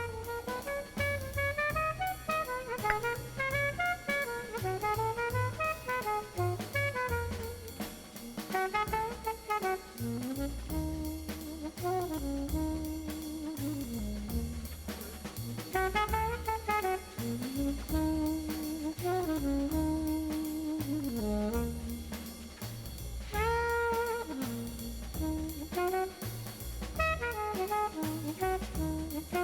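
Jazz background music: a brass horn line, most likely saxophone, plays a winding melody over bass and a drum-kit groove, with a rising bent note about 23 seconds in.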